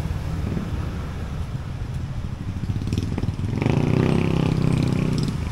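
Road traffic running steadily, with a motor vehicle's engine passing close and louder for a second or two about three and a half seconds in.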